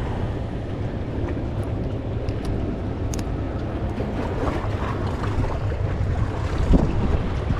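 Wind buffeting the microphone: a steady, rough low rumble, with a few faint small clicks.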